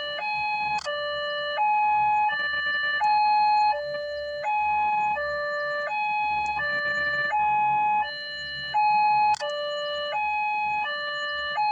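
Small electronic two-tone siren switching steadily back and forth between a high and a low note, each note held about three-quarters of a second.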